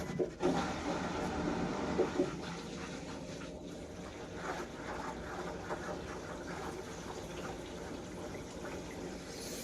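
Bosch front-load washing machine starting its spin/drain programme: water rushing and gurgling steadily as it is pumped out of the drum, with a few sharp clicks in the first two seconds.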